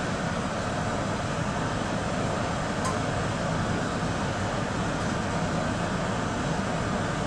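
Steady background noise, strongest in the low and middle range, with one brief high click about three seconds in.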